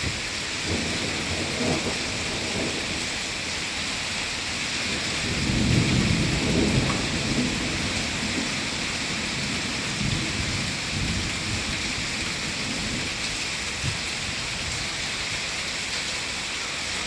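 Rain falling steadily with thunder rumbling over it, the rumble swelling loudest about five to seven seconds in and rolling again around ten seconds.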